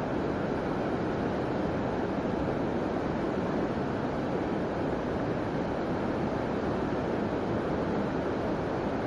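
Steady rushing of a flowing hill stream, an even continuous water noise with no breaks.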